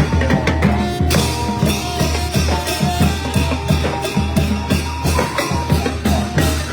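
Thai brass band (trae wong) playing: brass horns sounding held notes over a steady beat of drums and cymbals.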